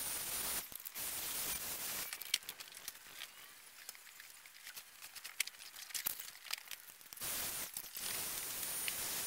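Electric paint sprayer spraying exterior paint onto wood siding: a steady hiss with a faint high whine, switched on and off by the trigger. It stops about two seconds in, leaving only scattered light clicks and crackles, and starts spraying again near the end.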